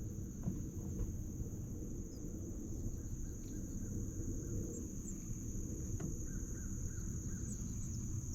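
Steady high-pitched drone of insects, crickets or similar, over a continuous low rumble, with a few faint ticks.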